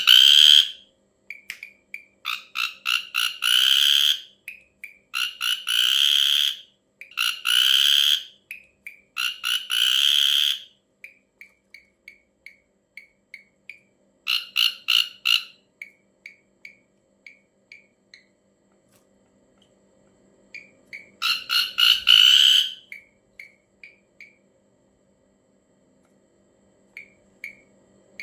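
Ashy drongo giving its strange harsh, rasping calls: repeated grating bursts about a second long, with short, clipped notes between them and a pause of a few seconds past the middle.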